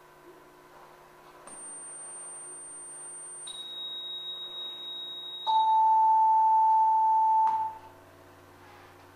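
Line-up test tones from the countdown-clock leader of a BRT videotape. Steady pure tones of about two seconds each step down in pitch, from very high to high to a loud middle tone, then to a faint low tone near the end.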